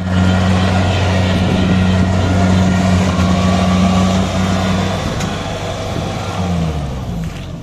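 Kubota DC-70G combine harvester's diesel engine running with a steady low drone, growing quieter over the last couple of seconds.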